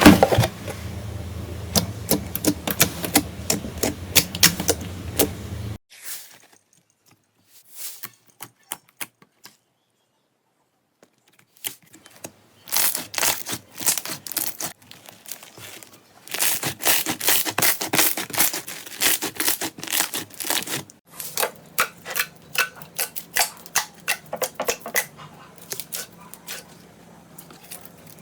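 Slime being squeezed and poked, giving rapid trains of crackling clicks and pops. The sound comes in separate stretches that change abruptly, with a near-quiet pause of several seconds near the start.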